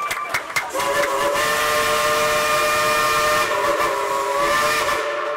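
Whistle of the coal-fired steam locomotive Engine 70 'Cinderella' sounding one long blast of several tones at once, with steam hissing alongside. It starts about a second in and cuts off near the end.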